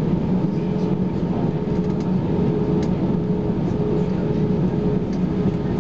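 Airbus A320 cabin noise while taxiing: steady hum of the CFM56 engines over the wing, with a constant low drone and a couple of held tones.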